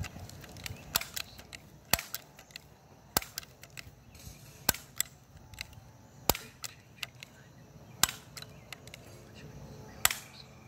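A multi-pump BB air rifle being pumped: about eight sharp clicks, one every second or two, with fainter ticks between them.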